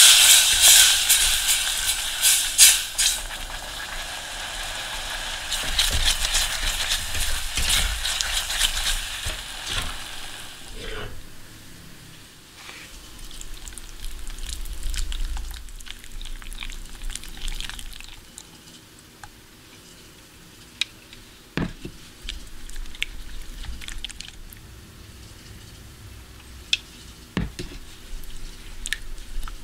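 Food sizzling and bubbling in a pan for about ten seconds, then much quieter, with scattered light clicks of a utensil.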